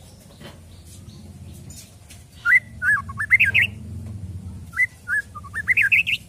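White-rumped shama singing two whistled phrases, one about two and a half seconds in and one near the end. Each starts with a few clear notes and climbs into a quick run of higher notes. A low steady hum runs underneath.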